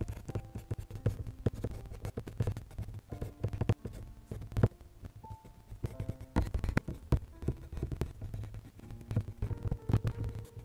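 Colored pencil scratching on paper in quick, irregular shading strokes, over soft background music with a few held notes.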